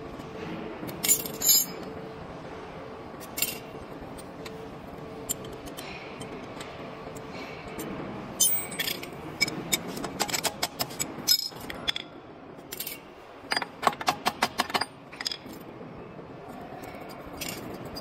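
Metal clinks and light scrapes of a screwdriver, feeler gauge and steel roller spacers being handled on a standing seam crimping machine while its rollers are adjusted. Short sharp clinks come in small groups, with a quick run of them about two thirds of the way through.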